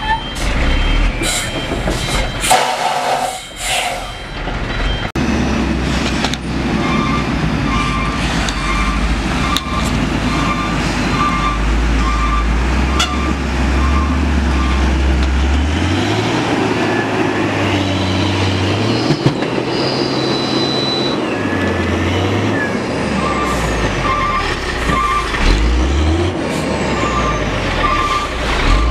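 Diesel engine of a heavily loaded Hino truck labouring in deep mud, its revs rising and falling repeatedly as the rear tandem wheels spin and churn. A few loud knocks sound in the first seconds, and a steady pulsing electronic beep comes in twice.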